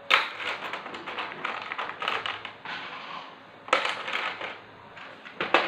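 Piping nozzles clicking and clattering against each other in a plastic box as a hand rummages through them. The clatter comes in bursts: a busy stretch at the start, then again at about four seconds and just before the end.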